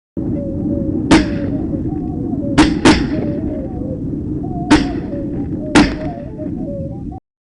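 Five shotgun shots over a steady low background rumble: one about a second in, two in quick succession near three seconds, and two more near five and six seconds.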